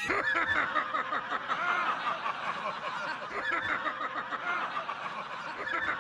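A crowd laughing and chattering, with many voices overlapping.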